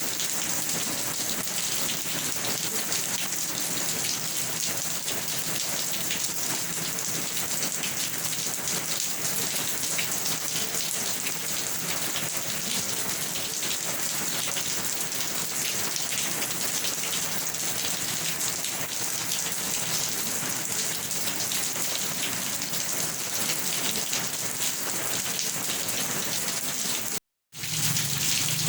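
Steady rain falling, a dense hiss of fine drop patter with no thunder. The sound cuts out abruptly for a split second near the end, then carries on.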